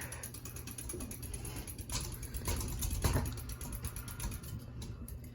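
Hunter Westminster ceiling fan running at medium speed, its motor giving a steady low hum, with a few light clicks near the middle.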